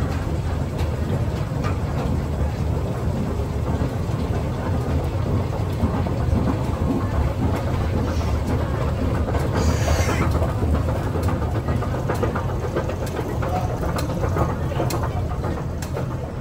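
Metro station escalator running: a steady low rumble with light clattering, and a brief hiss about ten seconds in.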